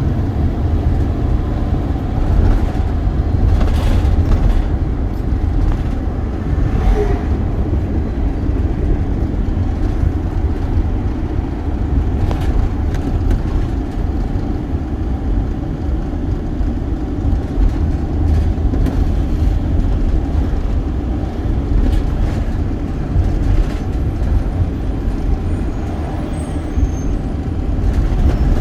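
Steady low rumble of a moving vehicle's road and engine noise, with a few faint knocks.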